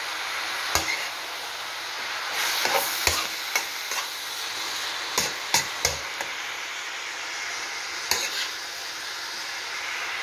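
Stir-fried vegetables (cabbage, carrots, peas, corn and green beans) sizzling in a large frying pan with a steady hiss while a metal spatula stirs them, with scattered sharp clicks of the spatula against the pan.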